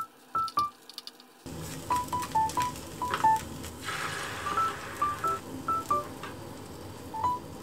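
Background music of short, plinky high notes, thin and tinny for the first second and a half. About four seconds in, a brief sizzle as beaten egg is poured into the hot tamagoyaki pan.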